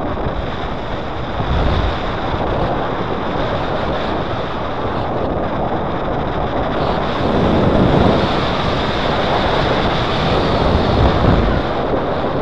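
Airflow rushing over the microphone of a harness-mounted camera on a paraglider in flight: a steady, rough wind noise that swells a little about eight and eleven seconds in. A faint steady high tone sits underneath.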